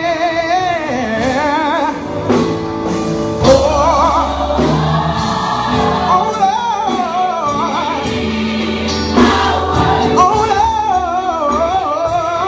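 Gospel choir music: voices sing long, wavering notes with vibrato over a band with a sustained low bass.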